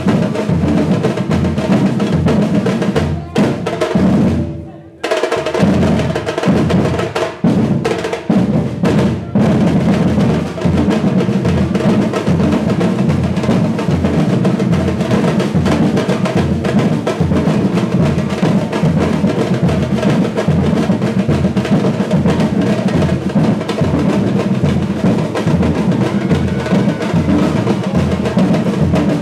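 Brazilian batucada percussion ensemble playing together, deep surdo bass drums pulsing under snares and other drums. About four seconds in the whole band stops dead for a moment, then hits a few short stop-and-go breaks before settling into a steady groove.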